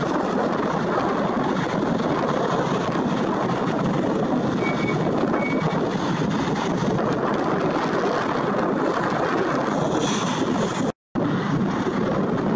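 The twin GE90-115B turbofan engines of a Boeing 777-300ER run steadily as the jet rolls down the runway at the start of its takeoff, making an even, broad rushing rumble. The sound drops out for an instant near the end.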